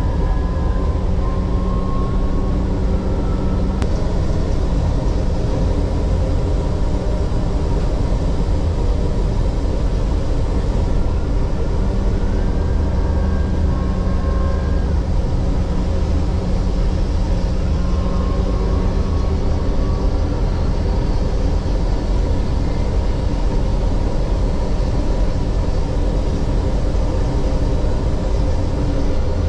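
Running noise of a moving MRT Line 3 train heard from inside a car: a steady, loud rumble of the wheels on the track, with a whine that glides up and down in pitch now and then.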